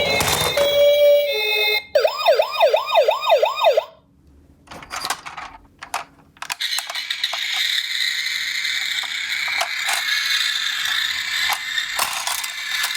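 Electronic toy ambulance siren: a two-tone hi-lo siren with a brief rushing burst at the start, then about two seconds of a fast rising-and-falling yelp that cuts off abruptly. After a few light clicks, a steady whirring rattle with scattered clicks runs through the second half.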